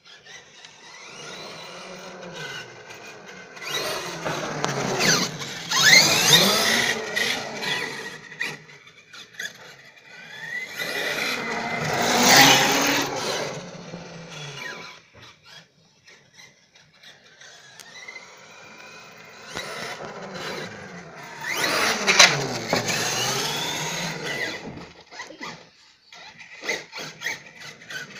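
HPI Savage XL RC monster truck fitted with a brushless motor (LRP Dynamic 8 2200kv on a Hobbywing 150A ESC) whining as it speeds up and slows down, the pitch gliding up and down. There are three louder runs, about five, twelve and twenty-two seconds in, with quieter whining between.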